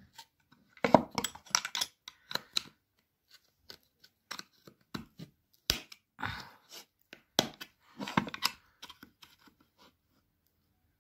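Flat screwdriver prying at the plastic housing of an Opel Corsa D door lock actuator: irregular scrapes and sharp clicks of metal on plastic as the housing's edge clips are forced loose.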